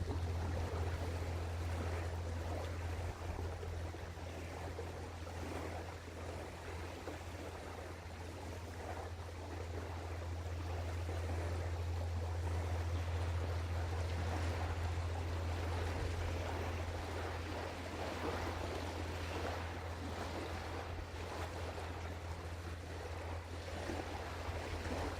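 Outdoor river ambience: a rushing of wind and water that swells a little in the middle, over a constant low hum.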